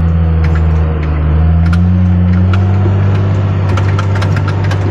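Wheel loader's diesel engine running steadily, heard from inside the cab, with scattered sharp clicks and rattles as the machine moves.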